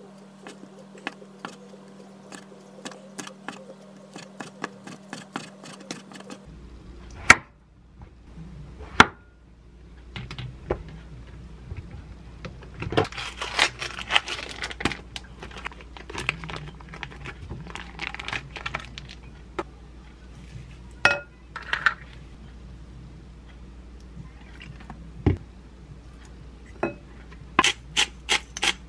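Chef's knife mincing rice cake on a wooden cutting board, a steady run of light chops, then two sharp knocks. Plastic film crinkling about halfway through as a meat tray is unwrapped, and near the end a quick series of knocks as a wooden spatula mixes ground meat in a glass bowl.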